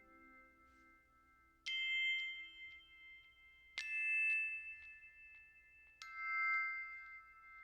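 Three bell-like chime notes, struck about two seconds apart, each ringing on for several seconds, as part of the background music.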